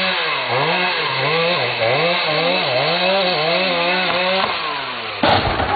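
Two-stroke chainsaw running, its engine speed dipping and climbing again and again, then falling away about four and a half seconds in. A sudden loud noise breaks in near the end.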